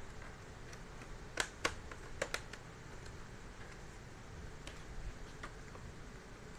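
Sharp plastic clicks from an Asus A540LA palmrest's snap-fit latches being pried loose from the case. Four louder clicks come close together about a second and a half to two and a half seconds in, with fainter ones scattered after.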